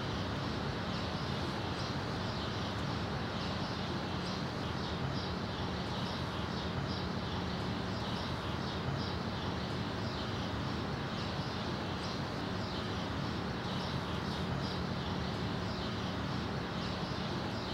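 Steady background ambience: a constant low hum with faint, short high chirps repeating through it.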